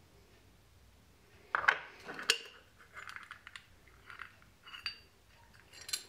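Aluminium coffee maker parts being handled and taken apart: metal clinks and knocks, the loudest two about a second and a half and two seconds in, then softer clinks and rubbing.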